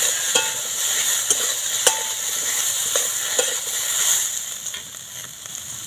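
Cubed potatoes and pumpkin stalks sizzling in hot oil in a kadai while a spatula stirs them, with sharp scrapes and taps of the spatula against the pan. The sizzle drops off near the end.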